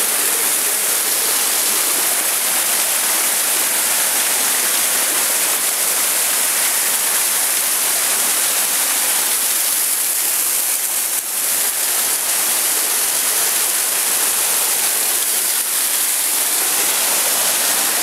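Small waterfall spilling down a rock face: a steady rush and splash of falling water.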